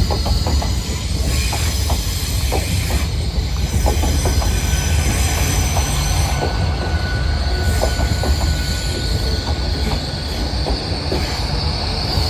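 Class 802 train running on the rails: a steady low rumble with scattered clicks from the wheels, and a high squealing whine that grows louder near the end.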